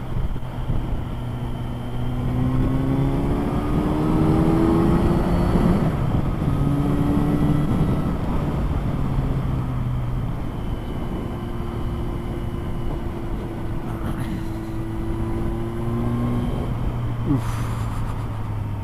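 Kawasaki Z900 inline-four engine accelerating under load, its note rising for a few seconds before it settles to a steady run, over a constant rush of riding noise.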